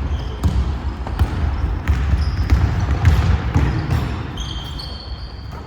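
Basketball game play in a gym: a ball bouncing on the court floor in repeated thuds, with short high squeaks near the end.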